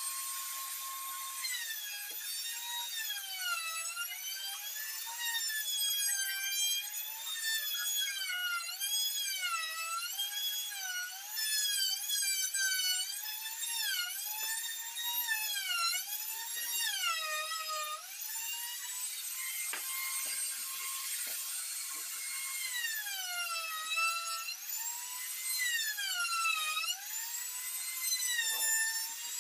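High-pitched whine of an electric woodworking power tool running off-screen. It runs at a steady pitch near the start and again midway. In between, its pitch repeatedly dips and recovers every second or two, as the motor slows under cutting load in wood.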